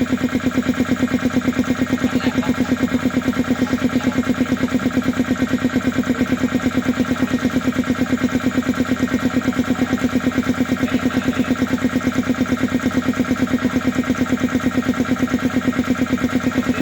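SWAN 1 HP piston air compressor driven by an electric motor, running steadily with a fast, even pulsing of about six strokes a second over a steady hum.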